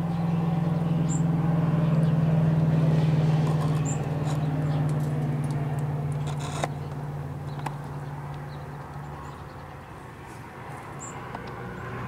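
Engine hum of a passing motor vehicle, a steady low drone that swells over the first few seconds and fades away past the middle. Three brief high chirps from small birds sound over it.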